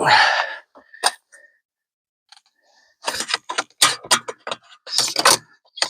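Sharp clicks, rattles and knocks of hands working a loose plastic cover back onto the solar hardware, with a short rustling burst at the start and a quick run of clicks in the second half.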